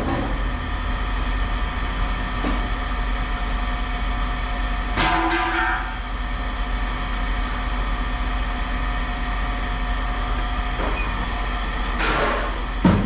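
An engine running steadily with a low rumble. There is a brief metallic rattle about five seconds in, and a couple of knocks near the end.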